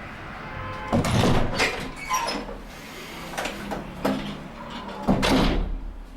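A series of knocks and clatters, about six in all, like doors or cupboards being opened and shut in a room; the loudest come about a second in and about five seconds in.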